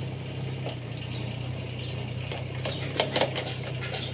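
Lovol FR18E2-U mini excavator's diesel engine running steadily under the boom and arm as they are swung by the hydraulics, with two sharp clicks about three seconds in.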